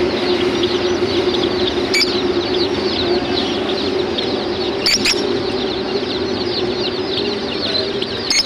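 A flock of pet budgerigars and other small cage birds chirping and chattering without pause, many quick short calls overlapping. Under it runs a steady low hum, and a few sharp clicks come about two, five and eight seconds in.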